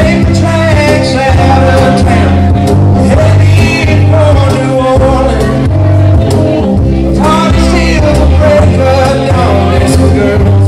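A small rock band playing live and loud: guitar and drums with strong low notes and a steady beat, and a man singing over them.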